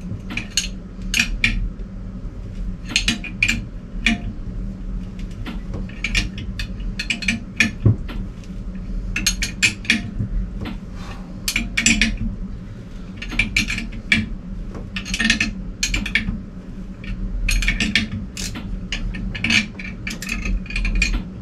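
Ratchet wrench clicking in short runs every second or two as it turns the nut on a homemade all-thread cylinder liner puller, drawing a wet liner up out of a diesel engine block. A steady low hum runs underneath.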